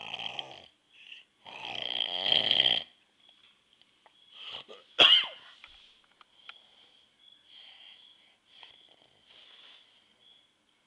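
A man snoring: two long snores in the first three seconds, then a sudden, louder sound about five seconds in that drops quickly in pitch, followed by quieter breaths. A faint steady high tone sits underneath.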